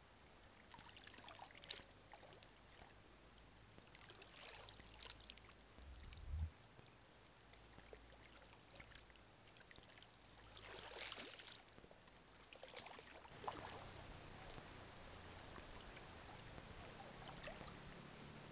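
Faint sloshing and splashing of shallow seawater as someone wades, with a few short splashes, the clearest about eleven seconds in, and a brief low thump about six seconds in.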